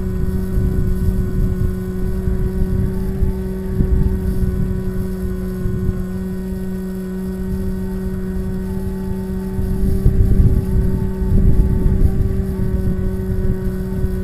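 Bixler RC glider's electric motor and pusher propeller running with a steady hum, heard from the camera on board, with wind buffeting the microphone that grows heavier about ten seconds in.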